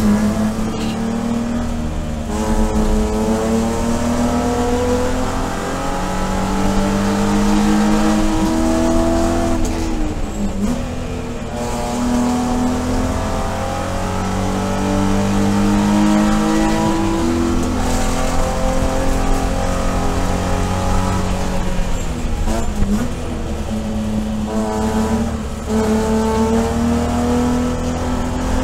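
BMW E46 race car's 3.0-litre straight-six, heard from inside the cabin. It climbs steadily in pitch under throttle in third gear, and the revs drop briefly a few times as the driver lifts for corners.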